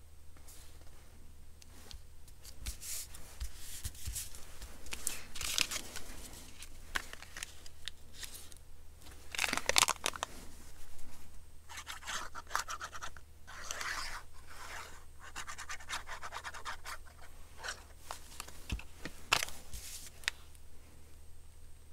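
Paper, card and vellum being handled and shuffled across a cutting mat: irregular rustling and scraping, loudest about ten seconds in.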